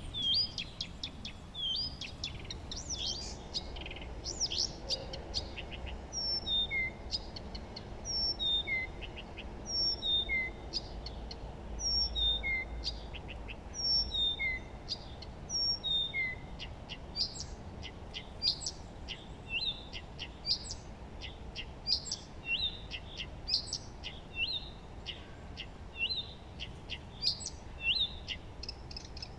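Several songbirds chirping and singing, with one bird repeating a short falling phrase about every second and a half through the middle, over a faint steady low background hum.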